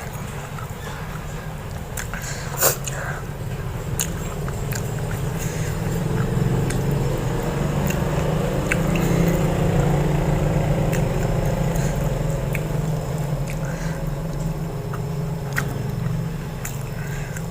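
Close-miked chewing and biting of fatty mutton curry and rice, with wet mouth sounds and scattered sharp clicks, the loudest about two and a half seconds in. A steady low hum runs underneath.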